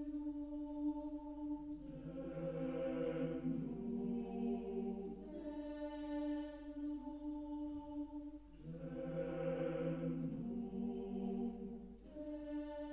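Four-part mixed choir singing slow, sustained chords, swelling to a full chord twice, with a single steady note held between the swells.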